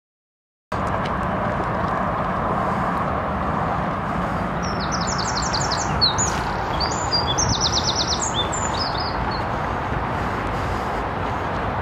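Outdoor woodland ambience that cuts in suddenly about a second in: a steady rushing background noise, with a small songbird singing two or three quick, high trills of rapidly repeated notes in the middle.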